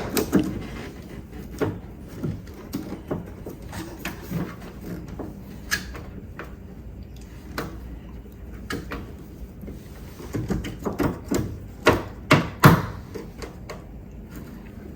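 Scattered clicks and knocks of a Toyota Altezza's outer door handle being wiggled and pried out of the door, with a busier run of knocks about three quarters of the way through.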